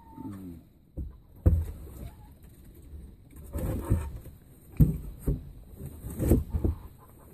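A hen pressed against the microphone, with her feathers rustling and a short low call near the start. Irregular knocks and thumps break in, the sharpest about a second and a half in, and again near five and six seconds.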